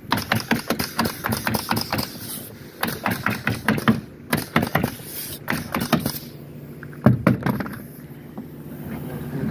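Pneumatic nailer firing rapidly into OSB sheathing, several shots a second in quick runs with short pauses, stopping about six seconds in. An engine hums steadily underneath, and a couple of loud knocks come about seven seconds in.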